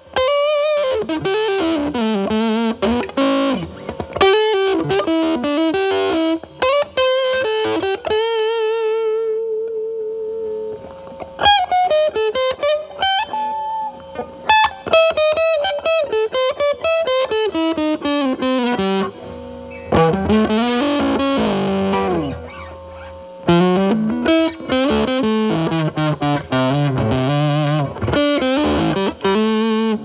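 Telecaster through a ZVEX Fuzz Factory Vexter in a Fuzz Face-style setting, cleaned up, into a Marshall Valvestate's drive channel: improvised blues lead lines with string bends and chords, and a long held note with vibrato about eight to ten seconds in.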